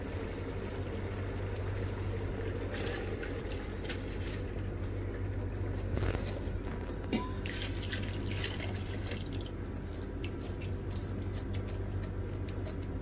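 Rice poured into a pot of simmering chickpea mixture, then water poured in on top. Liquid bubbles and trickles over a steady background hum, with crackling clicks from about three seconds in.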